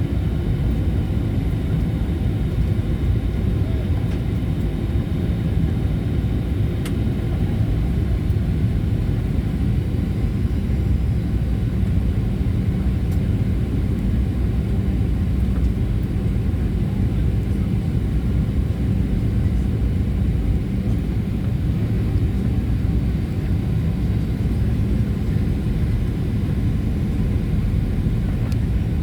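Steady cabin noise of a Boeing 737-800 in flight: the CFM56-7B engines and airflow make a constant low rumble.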